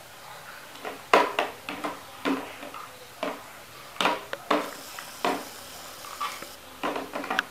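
Plastic toy fruit and toy kitchen pieces being handled, clicking and knocking together in about a dozen light taps at uneven intervals.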